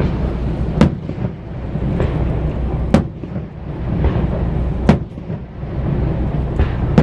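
Fireworks shells bursting overhead: four sharp booms about two seconds apart, over a continuous low rumble.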